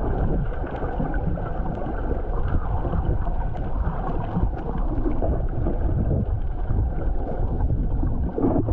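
Water rushing and sloshing around a camera held just under the surface beside swimming snorkelers: a steady, muffled underwater rumble with faint bubbly clicks.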